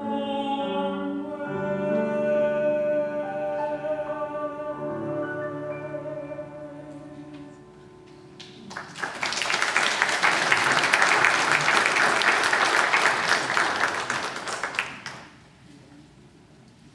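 A singer and piano finish a song on long held chords that fade away. After a short pause, people applaud for about six seconds.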